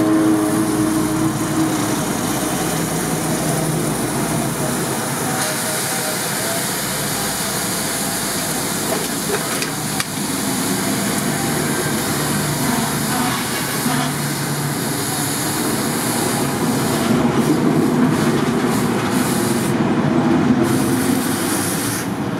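Water poured from a bottle onto the red-hot steel face of a forged claw hammer, hissing and sizzling steadily as it boils off into steam: the striking face is being quenched to harden it.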